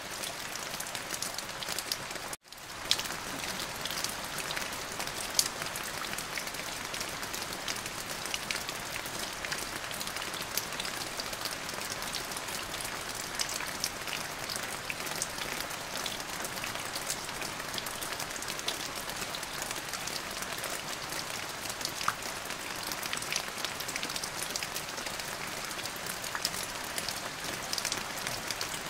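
Steady rain falling on a surface: a dense, even hiss of countless small drop taps. About two and a half seconds in, it cuts out for an instant and fades back in.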